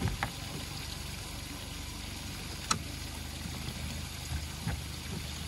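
Steady low outdoor noise of a small boat on a river, with one sharp knock about two and a half seconds in and a few soft knocks near the end.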